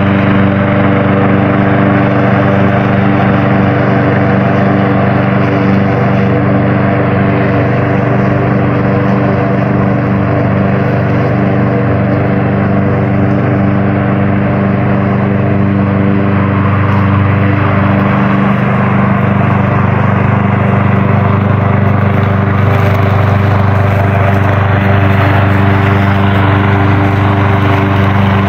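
Gasoline engine of a self-driving lawn mower running steadily at a constant speed, its note unchanging.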